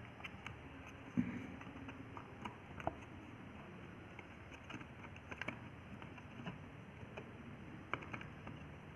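Scattered faint clicks and taps of small watch parts being pried loose and handled while a Bluetooth speaker watch is taken apart, with a sharper click about a second in.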